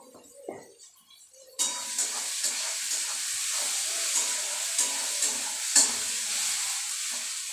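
Onion, tomato and turmeric frying in oil in an aluminium kadai, a steady sizzle that starts suddenly about a second and a half in, while a spatula stirs and scrapes the masala with a few sharp clicks against the pan.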